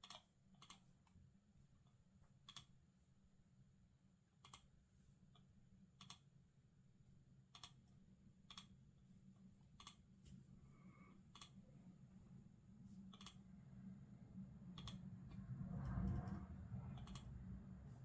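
Quiet, isolated clicks at a computer, one every second or two, as on a keyboard and mouse in slow use. Near the end a low rumble swells up and fades, loudest about 16 seconds in.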